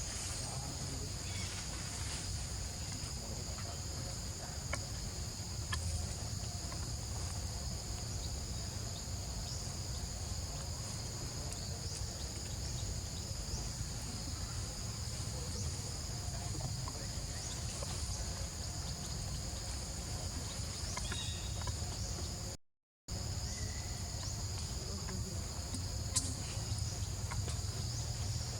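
Steady insect chorus, a continuous high buzz at two pitches, over a low rumble of wind or handling noise; the sound cuts out for a moment about 23 seconds in.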